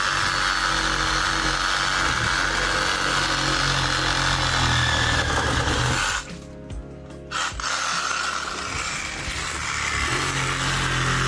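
Chainsaw running as branches are cut away from around a vehicle, with background music over it.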